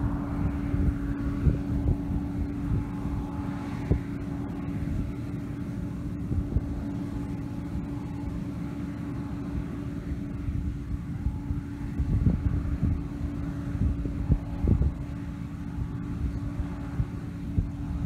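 John Deere combine harvesting wheat: a steady drone of its engine and threshing machinery with one constant hum. Wind buffets the microphone throughout, gustier about two-thirds of the way through.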